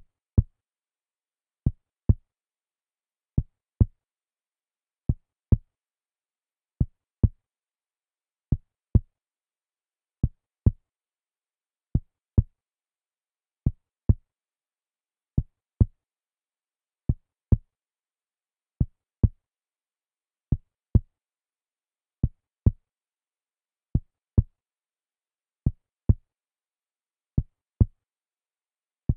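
Heartbeat sound effect: a slow, steady heartbeat of low double thumps (lub-dub), the pairs coming about every 1.7 seconds with silence between.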